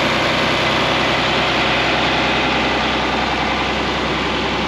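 John Deere 4010 tractor engine idling steadily with the PTO engaged, driving the sprayer's tank agitation while the spray tank fills.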